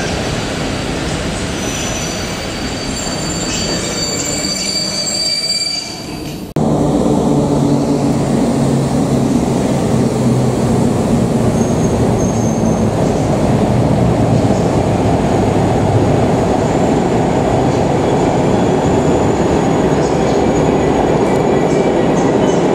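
Passenger train coaches rolling past at a station platform, the rumble echoing in the underground hall, with high-pitched wheel squeals over the first six seconds. About six and a half seconds in the sound changes abruptly to a louder, steady rolling rumble with a low hum.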